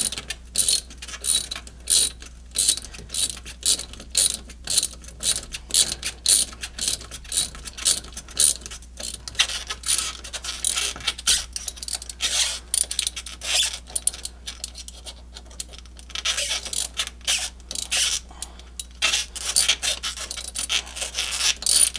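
Ratchet wrench with a half-inch socket clicking in repeated strokes, about two clicks a second, as it tightens the nut on a snowmobile track stud. The clicking breaks off for a couple of seconds past the middle, then picks up again.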